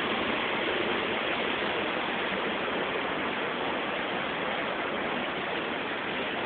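Waterfall crashing into its pool, a steady, dense rush of water.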